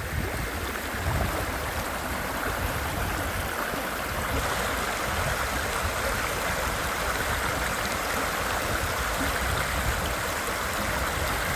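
Creek rapids rushing steadily, an even water noise that grows slightly fuller about four seconds in.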